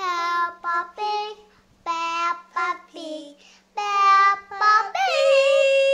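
A young child singing a short tune in clipped syllables, ending on one long held note.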